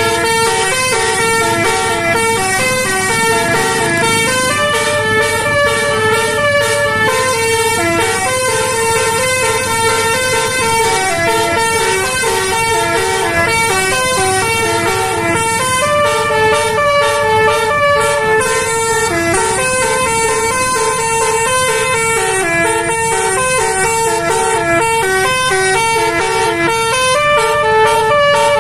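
Bus telolet horn playing a continuous tune: a set of air horns sounding short notes that step up and down in pitch, over a low rumble.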